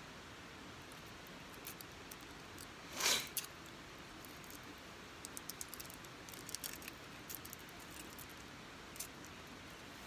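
Small plastic-wrapped packet being torn open and handled: one louder tearing rustle about three seconds in, then a run of small crisp crinkles of the wrapper.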